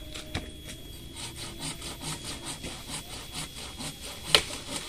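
A long knife sawing back and forth at a green avocado branch, quick strokes about four or five a second. A single sharp crack about four seconds in.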